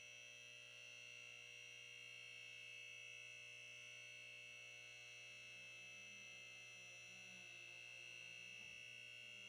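Near silence: a faint steady hum with thin high tones held throughout.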